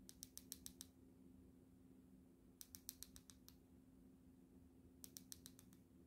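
Three short runs of faint, rapid clicks, about six clicks each and a couple of seconds apart, over a low steady hum.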